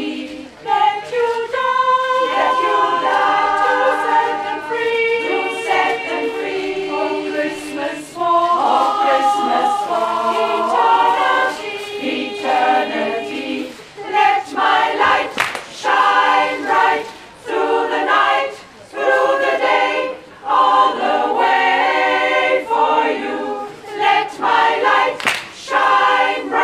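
Women's choir singing a cappella in several parts. Long held chords give way about halfway through to short, clipped rhythmic phrases with brief breaks between them.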